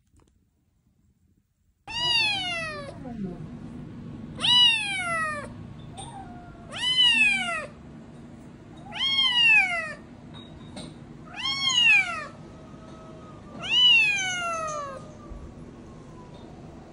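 A calico cat meowing loudly six times, about every two and a half seconds, each meow starting high and falling away, over a steady low hum that starts about two seconds in.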